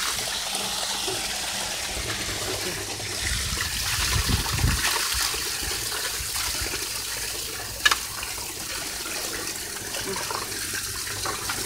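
Water gushing steadily from an outdoor pipe or fitting in the ground. There are brief low rumbles of the phone being handled about four seconds in and a sharp click about eight seconds in.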